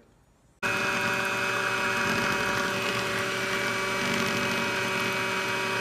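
Braun electric stand mixer switched on about half a second in, its motor running steadily with its wire beaters whipping eggs and sugar in the bowl.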